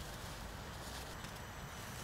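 Soft rustling of tent fabric being spread out over a groundsheet, and footsteps on dry leaf litter as the person gets up.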